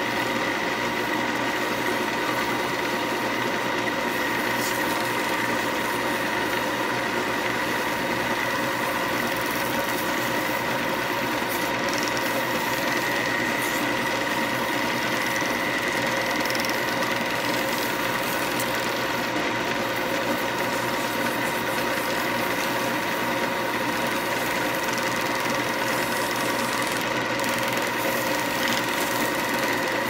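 Wood lathe running steadily, its motor whining at a constant speed. A snakewood pen barrel spins on it while being hand-sanded with fine abrasive paper.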